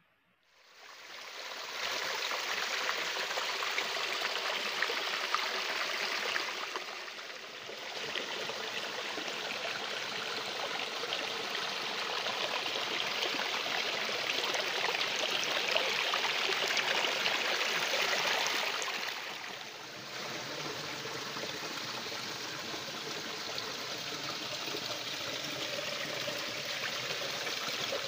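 Creek water splashing and trickling over rocks and down a small mossy cascade: a steady rush that fades in over the first second or so, briefly dipping about seven and twenty seconds in.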